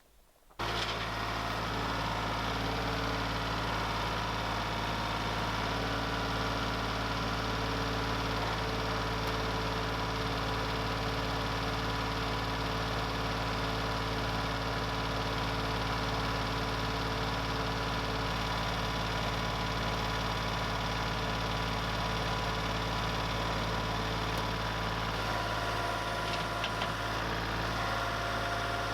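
Engine of a portable lumber mill running steadily at constant speed. It cuts in abruptly about half a second in.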